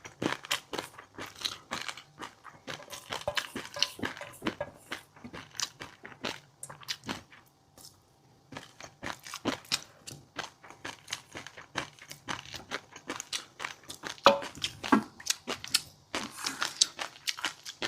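Close-miked chewing of fish roe and crunchy seafood toppings: rapid, irregular crunching and popping clicks, with a brief pause about eight seconds in.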